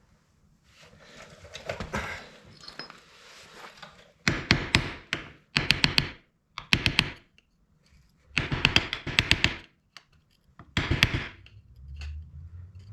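Quick metal-on-metal taps in five short bursts, each a rapid run of sharp knocks, while the countershaft sprocket's locking washer is worked into place and flattened. Shuffling and handling noise comes before them.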